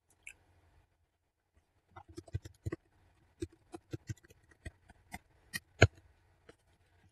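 Computer keyboard keys being typed: a single click, then after a pause an irregular run of about a dozen quick key clicks entering a password, the loudest a hard final key press near the end.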